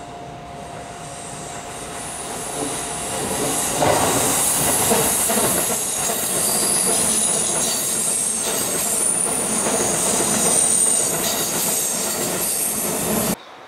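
Shin-Keisei 8800 series electric train approaching and passing close by on a curve, growing louder over the first few seconds. Its wheels squeal high against the curved rails over a rumble and the clatter of rail joints, and the sound cuts off suddenly near the end.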